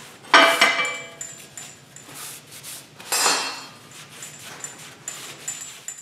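Steel tractor parts and bolts clanking and clinking as they are handled on a workbench, with two loud clanks that ring briefly, about a third of a second in and about three seconds in, and lighter rattling and scraping between.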